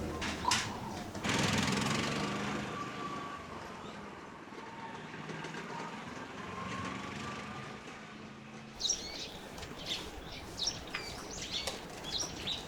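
A small motor running with a steady hum that swells about a second in and slowly fades. Then, after an abrupt change, small birds chirp in quick, repeated calls for the last few seconds.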